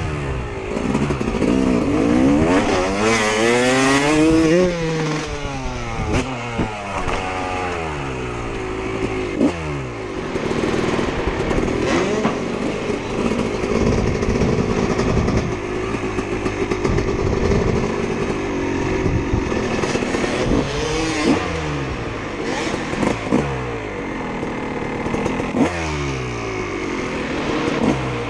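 Freestyle motocross dirt bike engine revving, its pitch rising and falling again and again as the throttle is opened and closed on the ramps and jumps.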